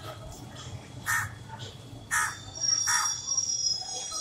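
Crows cawing three times, about a second apart, over a low steady hum. A thin, steady high-pitched whine sets in about halfway.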